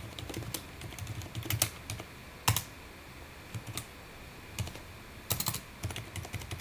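Typing on a computer keyboard: a quick run of keystrokes, then one louder key press about two and a half seconds in, followed by scattered keystrokes with short pauses between them.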